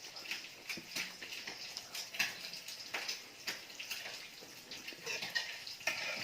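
Close-up eating sounds: wet chewing and lip smacks, with irregular sharp clicks a few times a second.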